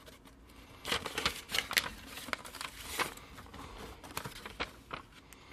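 Paper instruction sheets rustling and crinkling as they are unfolded and turned over by hand, in a string of irregular crackles that starts about a second in.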